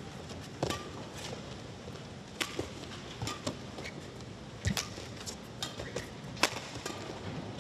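Badminton rally: sharp racket strikes on a shuttlecock about once a second, the loudest near the end, with brief shoe squeaks on the court between them over a steady arena hum.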